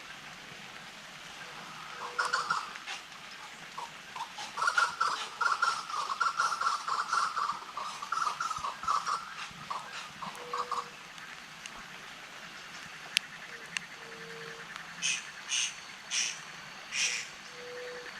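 Wild birds calling. A long run of rapid, chattering calls fills the middle, then four short, harsh, higher calls come near the end.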